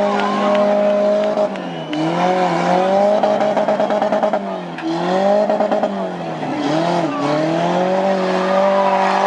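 Demolition derby cars' engines running hard, their pitch holding high, then dropping and climbing again several times as they back off and rev up.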